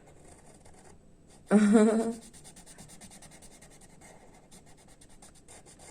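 Quick, scratchy pen strokes of someone drawing by hand, many short strokes in a row. About a second and a half in, a woman briefly makes a short vocal sound.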